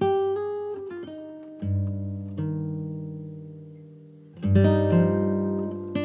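Guitar music: chords and single plucked notes left to ring out and fade, with the loudest chord struck a little past the middle.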